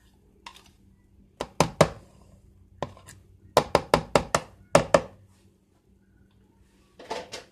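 A red plastic measuring cup knocked against a clear plastic mixing bowl to get the butter out: about a dozen sharp knocks in quick groups of two to four, with a pause before a last few near the end.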